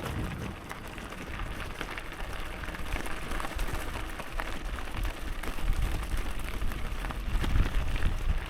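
Bicycle ride on a gravel bike: tyres hissing and crackling over the road surface with many small ticks, while wind rumbles on the microphone.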